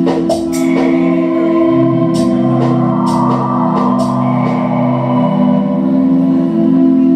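Live music performance: a loud, steady, layered drone, with a lower tone coming in about two seconds in and dropping out near five seconds, over scattered sharp clicks.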